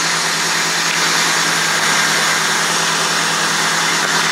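1989 Chevrolet Silverado 1500 engine idling steadily, just restarted after sitting unused for about six years.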